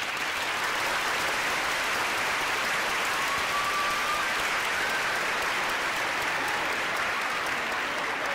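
Audience applauding steadily and densely, with a faint short whistle-like tone a few seconds in.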